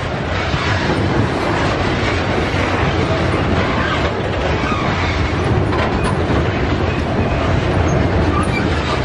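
Loaded covered grain hopper cars of a freight train rolling past close by, steel wheels running on the rails in a loud, steady rolling noise.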